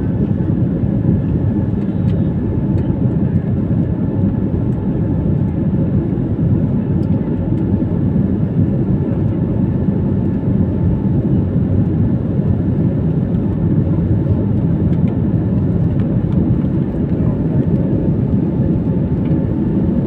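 Cabin noise inside a jet airliner climbing after takeoff: a steady low rumble of the engines and rushing airflow, with a faint steady whine.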